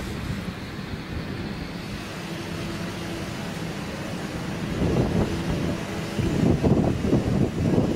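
Steady low rumble of a heavy machine's engine running, with wind buffeting the microphone, which grows louder over the last three seconds.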